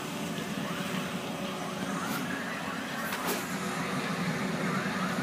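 Steady low rumble of idling heavy engines, with a few faint ticks or pops about two and three seconds in.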